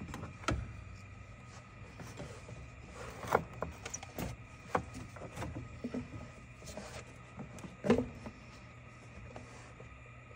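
Knocks, clicks and rubbing as an aluminium air-intake tube is worked back onto the throttle body among the hoses. The knocks are scattered and irregular; the loudest is near the end, with others about half a second in and around three and five seconds. A faint steady low hum runs underneath.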